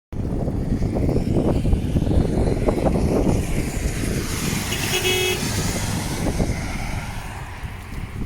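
Road vehicle noise over a steady low rumble, with one short car horn toot about five seconds in.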